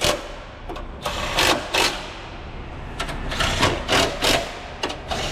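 A handheld power tool run in short, irregular bursts, each a fraction of a second long, as when driving fasteners on car body parts.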